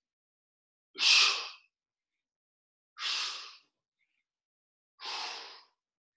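A man's sharp, forceful exhales through the mouth, one with each push-up: three breaths about two seconds apart, each a little fainter than the last.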